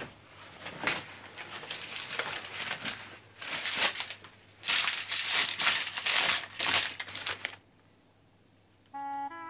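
Irregular bursts of rustling, crinkling handling noise that stop abruptly about seven and a half seconds in. Brass music starts near the end.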